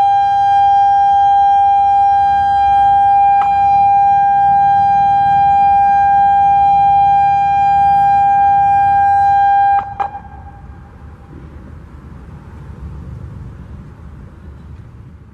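Genasys LRAD DS-60XL speaker arrays sounding a steady, single-pitched warning-system test tone, with a brief click a few seconds in. The tone cuts off suddenly about ten seconds in, leaving a short echo and low background noise.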